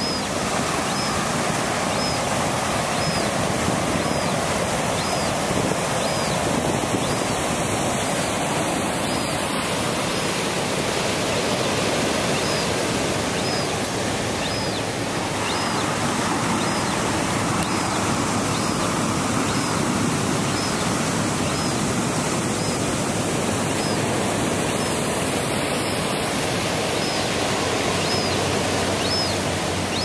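Surf breaking and washing over rocks below a sea cliff, a loud steady rush, with a juvenile western gull's thin, high begging cries repeating about once a second as it cries for food.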